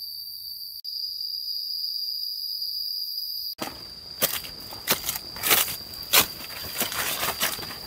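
A steady, high-pitched drone of forest insects. About three and a half seconds in it cuts abruptly to irregular footsteps crunching over the forest floor, with the insect drone still going underneath.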